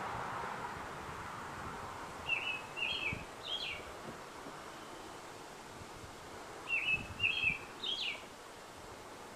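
A songbird singing twice, each time a short phrase of three quick high chirps, about four seconds apart, over a steady faint outdoor hiss.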